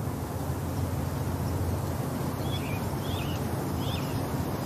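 Steady low outdoor background rumble with three short bird chirps between about two and a half and four seconds in.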